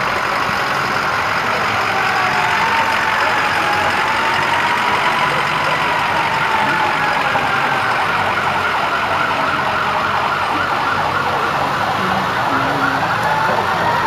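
A siren wailing, its pitch slowly rising and falling, over the running engine of a pickup truck pulling a float past.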